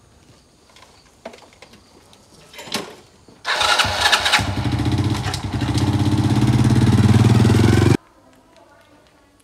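Small underbone motorbike starting up about three and a half seconds in, then running with its engine note growing steadily louder until it cuts off suddenly near the end.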